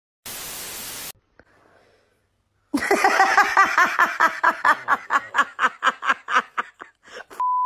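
A short burst of TV-static hiss, then after a pause a long run of quick, rhythmic laughter, about five bursts a second, fading near the end. A short steady beep sounds at the very end.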